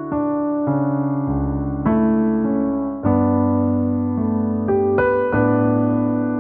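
Background music: slow, sustained chords, a new chord struck about every second or two.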